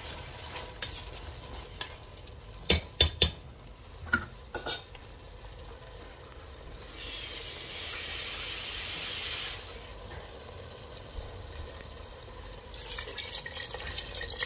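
Metal spoon stirring rice and chicken in a stainless steel pot, knocking sharply against the pot several times, three knocks close together about three seconds in. A steady hiss runs for a couple of seconds mid-way, and near the end water pours into the pot.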